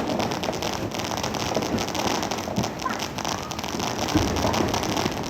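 Fireworks crackling: a dense, unbroken run of rapid small pops.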